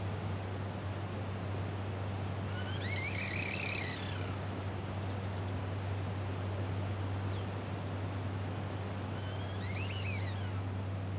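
Wooden bird whistles sounding birdsong-like calls over a steady low hum: a warbling trill about three seconds in, high gliding whistles a little later, and a short rising-and-falling trill near the end.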